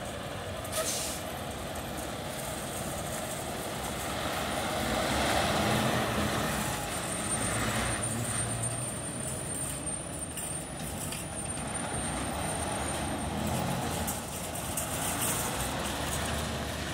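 Diesel semi-truck (tractor-trailer) engine running as the truck drives slowly past and pulls away, loudest about five seconds in. There is a short air hiss about a second in.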